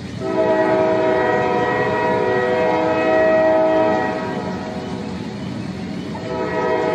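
Steam locomotive chime whistle blown: one long blast of several notes sounding together for about four seconds, then a second blast starting near the end, over the steady rumble of the running train.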